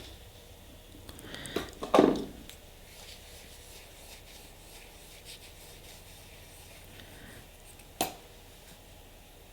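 Nail stamping tools being handled: a short scraping rub about two seconds in and a single sharp click near the end.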